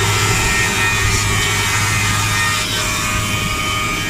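Four-sided moulder running steadily with a strong low hum, its cutter heads machining MDF.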